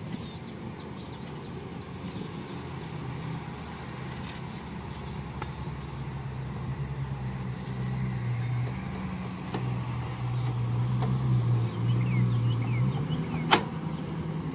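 A vehicle engine running, growing louder over several seconds and then easing off, with a single sharp click near the end.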